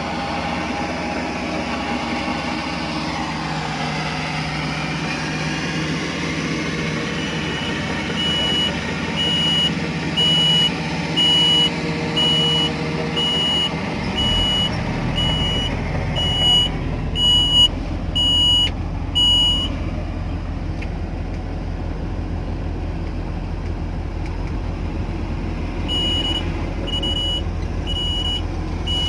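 Kobelco 850 excavator's diesel engine running steadily, with a high electronic beeping alarm repeating about twice a second in two spells. About halfway through, the engine's low rumble changes and becomes heavier.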